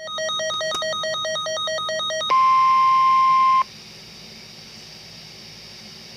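NOAA Weather Radio weekly test alert on a weather radio receiver. A rapid electronic warble alternates between two pitches for about two seconds. A louder steady single-pitched alarm tone follows for about a second and a half, cuts off abruptly, and leaves faint radio hiss.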